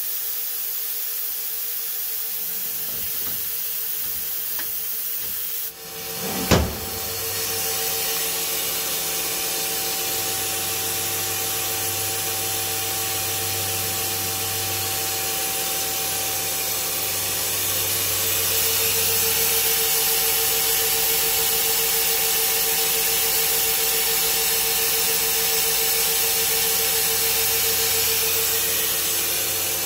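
Steady machinery hum and hiss with a steady whine from a powered-up CNC turn-mill center. A single sharp knock comes about six and a half seconds in. After it a low hum joins and grows a little louder about eighteen seconds in.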